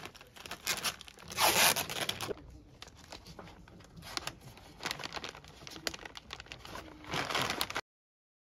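Packing tape ripped off a roll and plastic sacks crinkling as a bag is taped shut, in irregular rustling bursts with the longest, loudest rip about a second and a half in. The sound cuts off suddenly near the end.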